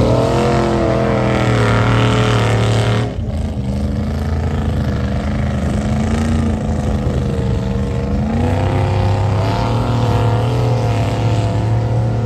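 Lifted mud truck engine revving hard under load as the truck plows through a flooded mud pit, its pitch wavering with the throttle. About three seconds in the engine drops off suddenly, then builds again near the end.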